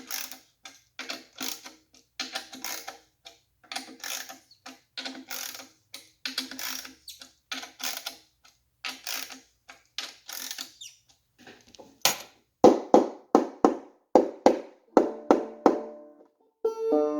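Banjo tension-hook nuts being turned to tighten the head, a long run of quick metallic clicks with faint string ringing underneath. About twelve seconds in, the banjo is brushed in a steady strumming rhythm and ends on a ringing chord, now out of tune because the tightened head has raised the bridge.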